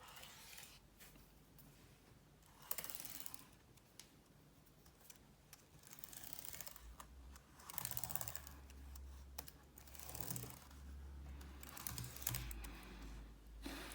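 A damp cotton bud scrubbing across MacBook Pro keyboard keys in irregular bursts, with light key clicks as the keys are pressed down.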